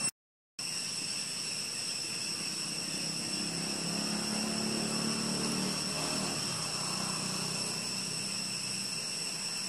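Steady, high-pitched drone of insects in the trees, several shrill tones held without a break. A faint low hum swells and fades in the middle. The sound drops out completely for about half a second just after the start.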